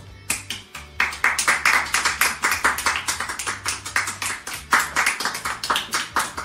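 A few people clapping by hand in quick, uneven claps, beginning about a second in.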